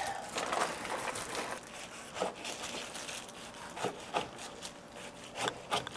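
Chef's knife cutting through napa cabbage kimchi on a wooden cutting board: scattered, irregular soft knife strikes through the wet leaves, with light plastic crinkling from a disposable glove and bag.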